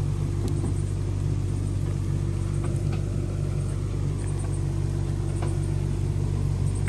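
An excavator's engine running steadily with an unchanging low drone, with a few faint clicks over it.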